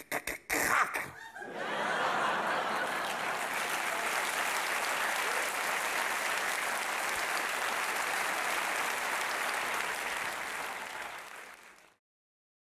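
Brief vocal noises in the first second or so, then an audience applauding steadily for about ten seconds, fading out near the end.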